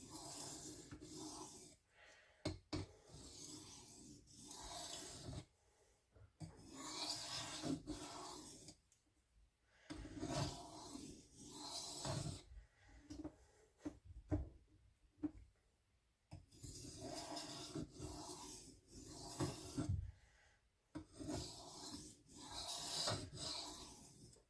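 S35VN steel knife blade stroked across a wet diamond sharpening plate with very light pressure: faint, repeated scraping passes of a second or two each, with brief pauses and small clicks as the blade is lifted and set down. These are finishing strokes to raise and refine the burr.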